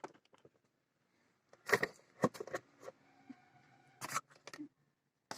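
Scattered clicks and light knocks from handling the opened home theatre unit and its parts: one click at the start, a cluster a couple of seconds in and another near the end.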